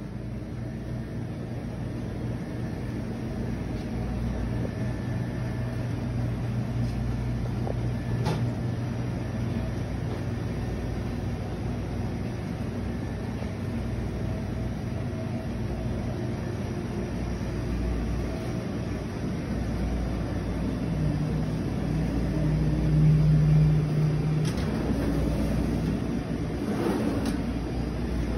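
Steady low mechanical hum with a few faint clicks; a stronger low tone comes in for a few seconds about three-quarters of the way through.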